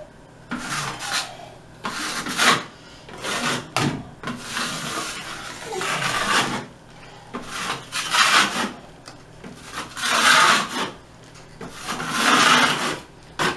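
Drywall knife spreading joint compound over a plaster wall: about eight long scraping strokes, each roughly a second long, one after another.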